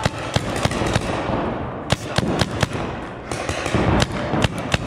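Paintball markers firing: sharp pops in irregular strings, thinning out about a second in, then coming thick and fast through the second half.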